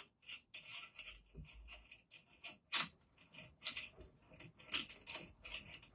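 Irregular clicks and light knocks of small parts being handled and fitted together while assembling a light-up decoration, with a sharper click about three seconds in.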